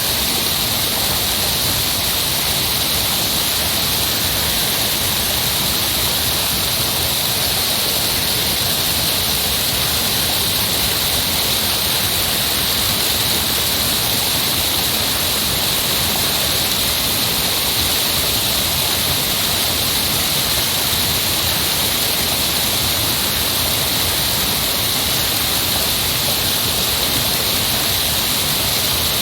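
Heavy rushing water, a steady unbroken hiss that is strongest in the upper range and does not change.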